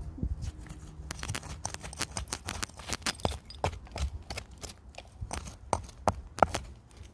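Hands working through loose tip debris to free a buried glass jar: irregular clinks, knocks and scrapes of broken glass and crockery shifting.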